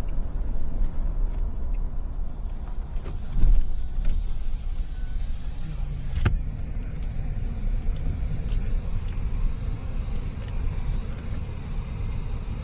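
Steady low rumble inside a car, with a thump about three and a half seconds in and a sharp click about six seconds in.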